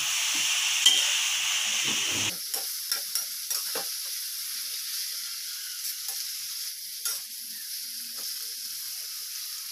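Water spinach sizzling in a hot wok as it is stir-fried, with a metal spatula now and then scraping and knocking against the wok.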